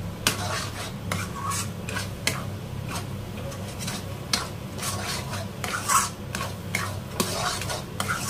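Metal spatula stirring and scraping a thick mixture of khoya and desiccated coconut around a steel kadhai as it is roasted. The scrapes come irregularly, about one or two a second.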